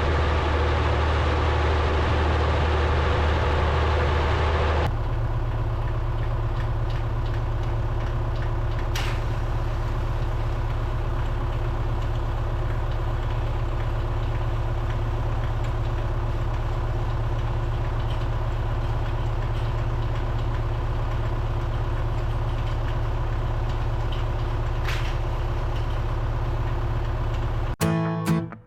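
Farm tractor engine running steadily under load during hay baling. About five seconds in the sound changes abruptly to a smoother, lower drone. Guitar music starts right at the end.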